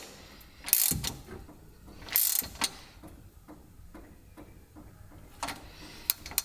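Hand socket ratchet clicking as a nut is run down onto a stud, in two short rattling bursts about a second and a half apart, then a few single clicks near the end.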